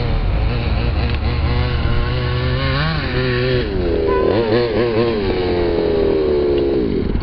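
FG large-scale RC monster truck's small two-stroke petrol engine revving up and down as it is driven. Its pitch rises about three seconds in, wavers, then falls in a long slide near the end.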